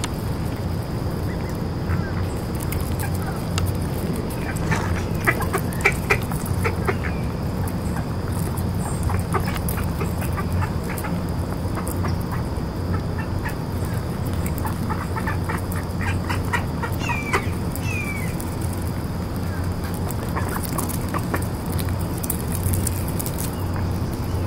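Mallard ducks feeding on scattered popcorn: clusters of quick pecking clicks and a few short calls over a steady low hum.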